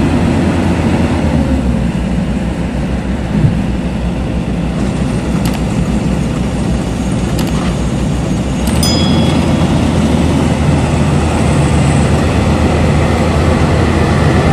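Maxxi Bimo 102L rice combine harvester running steadily under load while harvesting: a continuous engine and threshing drone. It steps up slightly in loudness about nine seconds in.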